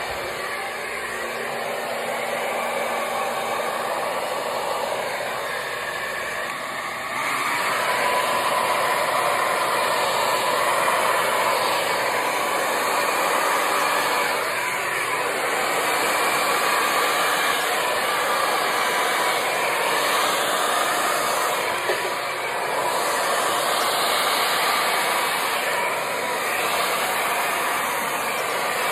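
Hair dryer blowing steadily on its slow setting, with a faint motor hum; it gets louder about seven seconds in and swells and eases a little as it moves over the canvas.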